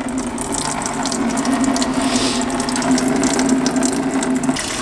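Pink engine coolant draining in a thin stream from a cut radiator hose into a plastic fluid drainer, splashing steadily, with a steady low hum beneath it; both stop suddenly near the end.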